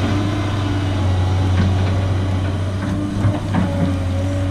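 Large excavator's diesel engine running steadily with a deep, even hum, while water pours through the freshly breached ditch into the pond.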